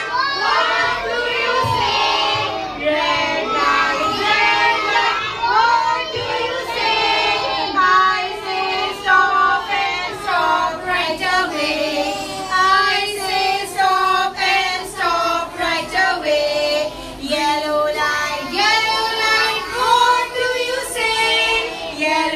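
A group of young children singing a traffic-lights action rhyme together, led by women's voices.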